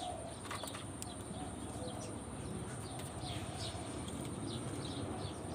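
Soft cooing from caged spotted doves, with short, high, falling bird chirps scattered through.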